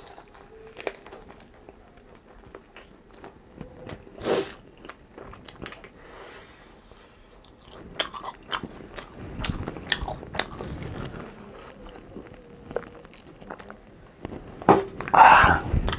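Close-miked eating: biting and chewing with many small mouth clicks, a sharp bite about four seconds in, and a louder burst of chewing near the end.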